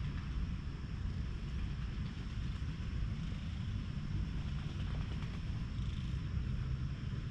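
Domestic cat purring steadily while being stroked.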